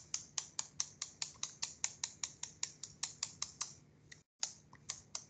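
Computer keyboard keys tapped in a fast, even rhythm, about five strokes a second, with a brief pause about four seconds in.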